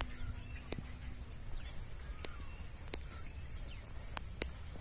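Field ambience: a steady high-pitched insect buzz with short chirps repeating about once a second. A handful of sharp clicks fall across it.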